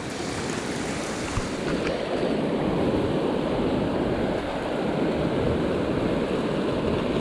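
Fast river water rushing steadily through a block-ramp rapid, the whitewater churning over the stones.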